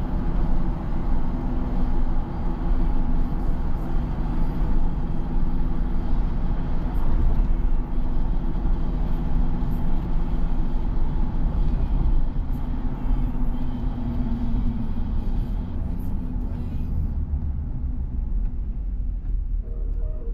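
Car on the move: a steady low rumble of engine and road noise, its higher hiss easing off near the end.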